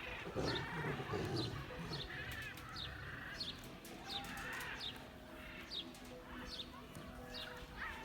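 A small bird repeating a short, high, falling chirp about once a second, with softer twittering from other birds lower in pitch.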